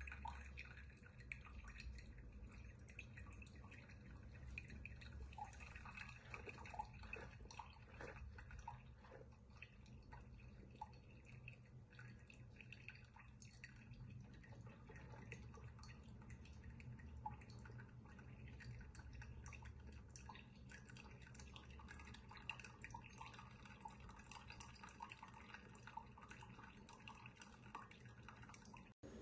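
Faint, irregular dripping and trickling of liquid over a low steady hum.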